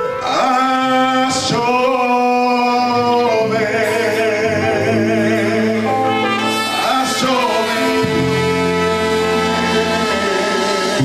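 A man singing long held notes with vibrato in a worship song, over electric keyboard accompaniment.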